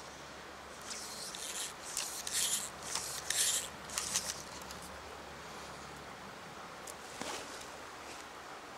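Floating fly line being stripped in by hand through the rod guides: a series of short rasping zips, roughly two a second, between about one and four seconds in.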